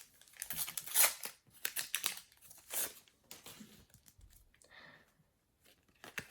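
Foil trading-card packet being torn open and crinkled: several sharp rips and crackles in the first three seconds, then fainter rustling of the wrapper and cards.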